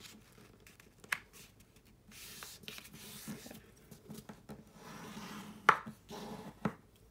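Bone folder burnishing the creases of folded patterned cardstock paper: soft rubbing strokes along the fold, with a few sharp taps as the folder and paper knock on the table, the loudest about two thirds of the way through.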